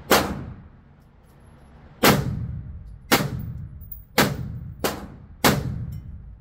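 Six rifle shots from an AR-pattern rifle, fired singly, the first few about a second apart and the last three quicker. Each shot rings out in the reverberation of an enclosed shooting range.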